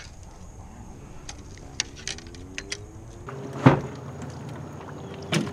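Light scattered clicks and taps of a spinning rod and reel being handled, then two sharp knocks nearly two seconds apart, the first the loudest.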